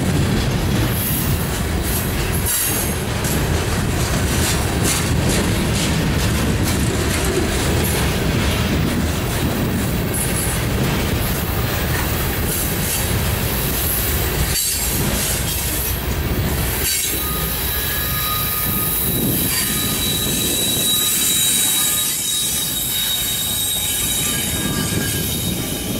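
Loaded coal hopper cars of a freight train rolling past close by with a steady, heavy rumble of steel wheels on rail and some clacking over rail joints. From the middle on, the wheels add a high, steady metallic squeal.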